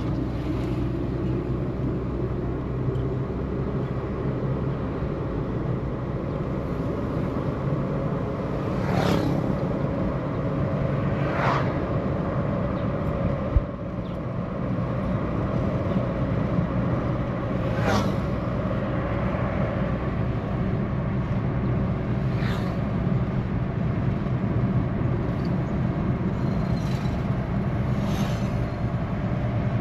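Car driving along a road: steady engine and road rumble, with a few short swells of noise.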